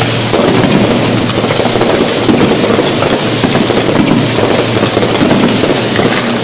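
Fireworks barrage at close range: many shells bursting and crackling in quick succession, merging into one continuous loud rattling roar.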